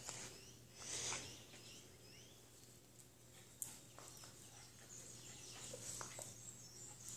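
Faint sounds of two small dogs playing on a tile floor: a short noisy rush about a second in and a few light clicks, with birds chirping faintly in the background and a low steady hum.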